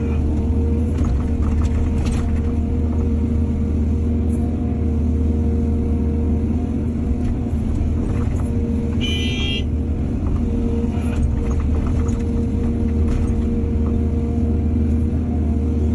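Excavator's diesel engine running steadily with a low rumble, with scattered knocks and clanks. There is a brief high-pitched squeal about nine seconds in.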